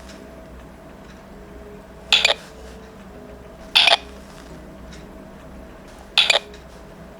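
Kamen Rider Decade K-Touch toy giving three short electronic beeps, like phone keypad tones, as its touch keys are pressed. The beeps come about a second and a half to two and a half seconds apart.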